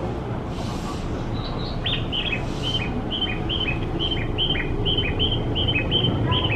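Bird-like chirping: a quick two-note chirp, high then lower, repeated evenly about three times a second, starting about a second and a half in. Underneath is a steady low rumble from the 211 series electric train standing at the platform, and there are two short hisses in the first three seconds.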